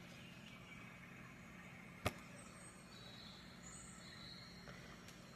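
Near silence with a faint steady hum, broken by a single sharp click about two seconds in; faint high thin tones sound in the background during the middle seconds.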